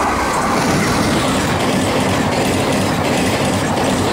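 Howrah Duronto Express passing at full speed behind an electric locomotive: a steady, loud rush with the wheels clattering over the rail joints in the rapid, gunfire-like track sound.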